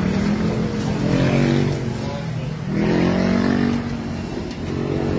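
Motor vehicle engines passing on the street, a steady hum that swells twice with the pitch rising and falling as they go by.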